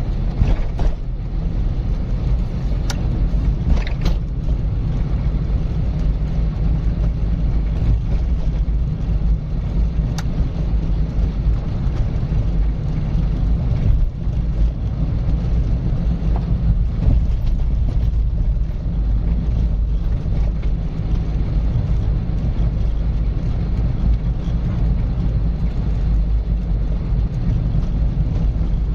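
A car driving at steady speed: a constant low rumble of road and engine noise, with a few brief ticks in the first few seconds.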